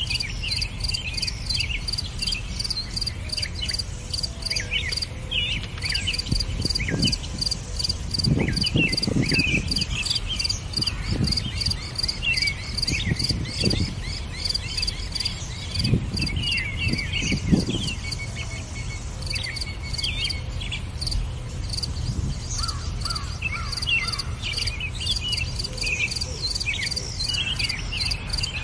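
Insects chirping in a steady, evenly pulsed high trill, with many short bird chirps and calls over it. A few low rumbles of noise come and go around the middle.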